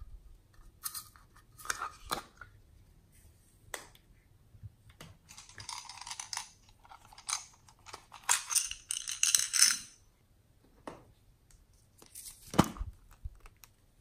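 Small plastic toy containers clicking and knocking as they are handled and opened. Midway comes a few seconds of rattling, scraping rustle as glitter is scooped out with a small plastic spoon, and a sharp knock sounds near the end.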